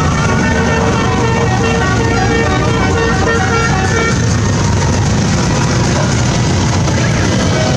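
A parade of motorcycles, a quad bike and cars passing on the street, engines running with horns tooting, and a siren-like wail rising and falling in the first few seconds.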